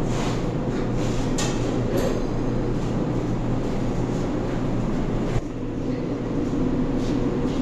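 Steady low droning hum of restaurant kitchen equipment and ventilation, with a few light clatters in the first couple of seconds and a sharp click about five seconds in, after which the hum drops slightly.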